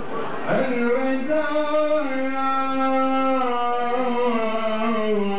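A man's solo Islamic religious chant sung into a handheld microphone in a slow, melismatic style, with long held notes that step down in pitch. It begins about half a second in.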